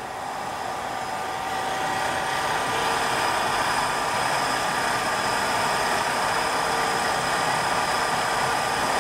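Milling machine running with an end mill cutting a clearance slot in a cast-iron mill saddle for a ball nut: a steady machining noise that builds over the first two seconds, then holds.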